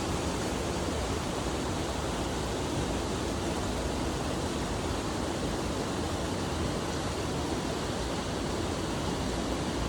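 Steady, unbroken rush of flowing water in a waterway swollen after rain.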